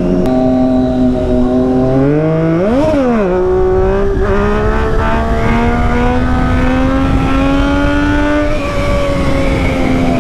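Motorcycle engine running at road speed under the rider, with wind rush on the microphone. About three seconds in the revs rise sharply and drop straight back, then the pitch climbs slowly as the bike pulls harder, easing off slightly near the end.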